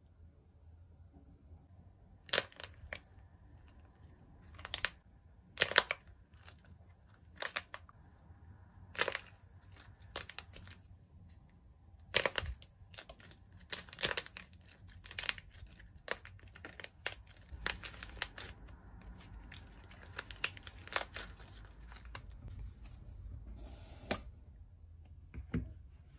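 Crisp chocolate shell of an ice-cream bar crackling and snapping as fingers break it apart: a series of sharp, irregular cracks, about one every second or two.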